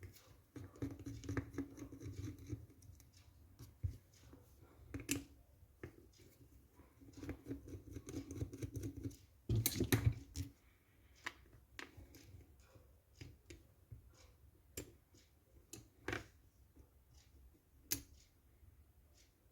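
Parts and tools of an airsoft M14 clicking and scraping as it is taken apart by hand, with a louder clatter about ten seconds in.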